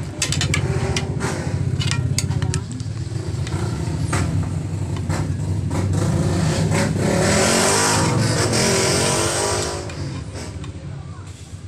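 Clicks and knocks of an aluminium cooking pot being handled as boiled cassava suman are taken out, over a steady low engine-like hum. A rush of noise swells about six seconds in and fades near ten seconds.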